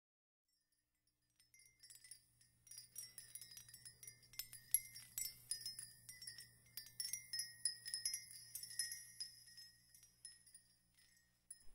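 Small high-pitched chimes tinkling, many light irregular strikes ringing over one another. They start about a second in and die away just before the end.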